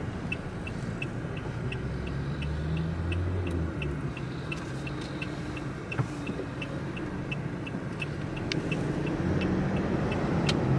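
A car's turn-signal indicator ticking evenly, about three clicks a second, over the steady hum of engine and road noise inside the cabin during a right turn. The ticking stops about nine seconds in.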